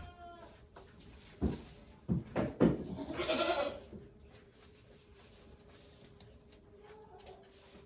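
Goat bleating: a short, high call at the start, then a faint, drawn-out low call. Between them, about one and a half to two and a half seconds in, come a few loud knocks, followed by a brief rustle.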